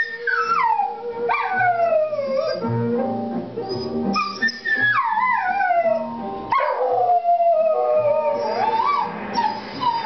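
A dog howling along to a country song playing on a record: several long howls, each starting high and sliding down in pitch.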